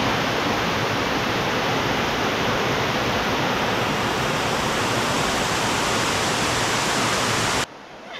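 Rushing water of a mountain valley stream at a waterfall: a loud, steady rush that cuts off suddenly near the end.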